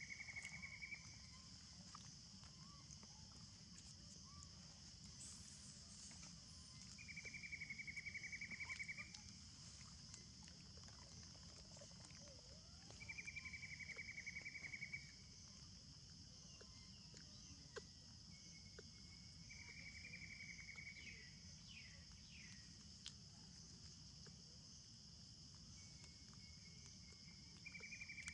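Faint insect chorus: a steady high-pitched buzz, joined about every six seconds by a lower, rapidly pulsing trill lasting around two seconds.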